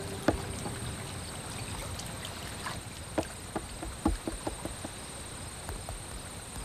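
Horse's hooves clip-clopping as faint, irregular knocks, thickest between about three and four and a half seconds in.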